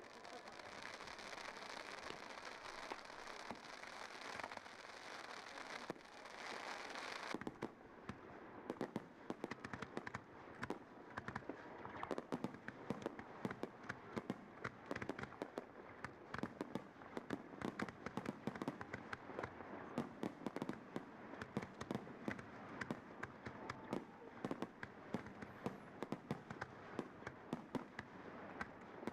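Fireworks and firecrackers going off: a dense, steady rush of noise for about the first seven seconds, then, after a sudden change, a long run of sharp cracks and bangs, several a second.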